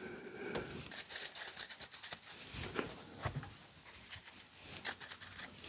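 Faint clicks and light rustling of baseball cards being slid and flipped through by hand.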